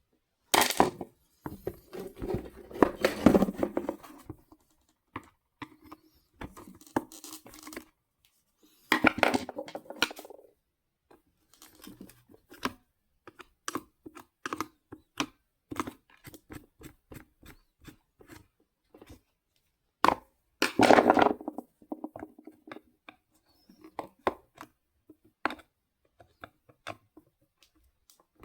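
Hand-work handling noise: many scattered clicks and knocks of plastic parts and tools, with three longer stretches of louder scraping and rustling, about half a second in, around nine seconds in and around twenty seconds in.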